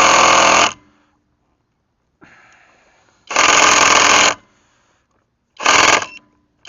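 Cordless VTEK V6309R impact wrench hammering on a car lug nut in short bursts: one run stops just under a second in, then two more come, about a second and half a second long. The nut is too tight for the wrench to break loose.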